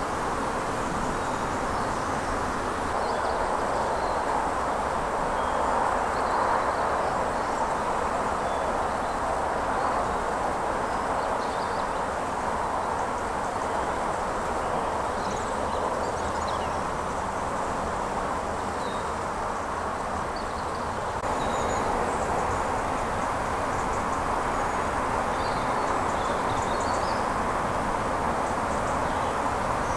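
Steady outdoor rushing noise, even throughout, with faint high bird chirps scattered through it.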